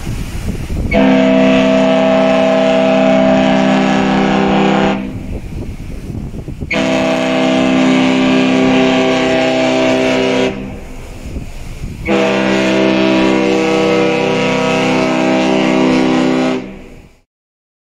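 A Hurtigruten coastal ship's horn sounds three long, deep blasts of about four seconds each. It is the horn salute exchanged when two Hurtigruten ships meet.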